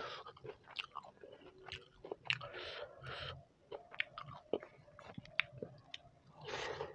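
Close-miked chewing of soft khichdi, a rice-and-lentil dish, with many short wet clicks and smacks of the mouth. Just before the end there is a longer wet noise as a handful of khichdi is scooped and taken into the mouth.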